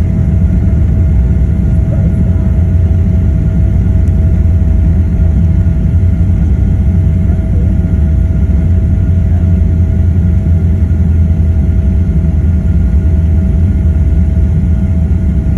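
Cabin noise inside an Emirates Boeing 777-300 rolling on the ground just after landing: a loud, steady low rumble of the engines and wheels, with a faint steady whine above it.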